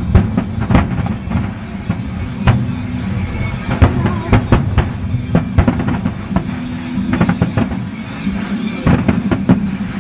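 Aerial fireworks bursting in an irregular string of sharp bangs, over music playing throughout.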